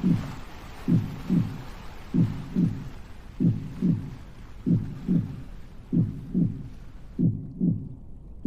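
Slow heartbeat, a steady lub-dub of paired low thumps about 47 times a minute, over a soft hissing wash that cuts off suddenly about seven seconds in.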